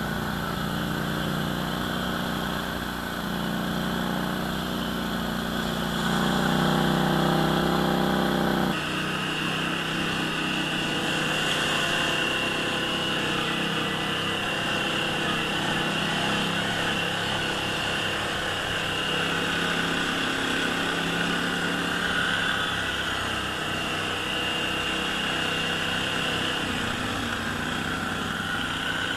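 ATV engine running steadily. It gets a little louder around six seconds in, then the sound changes abruptly at about nine seconds.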